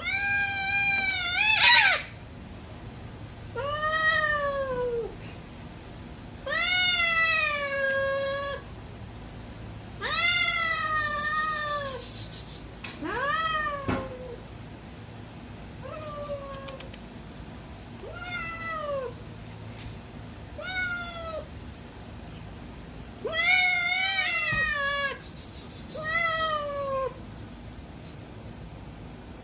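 Domestic cat meowing again and again: about ten long, drawn-out calls, each rising and then falling in pitch, with short pauses between them.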